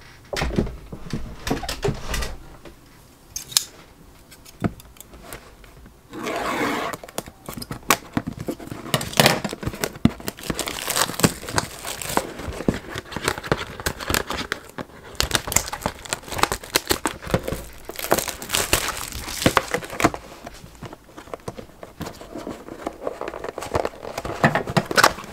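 Plastic shrink wrap being torn and crinkled off a sealed cardboard trading-card box: irregular crackling and rustling, busiest from about six seconds in.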